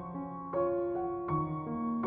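Background piano music: a slow melody of held notes, each new one struck about every half second.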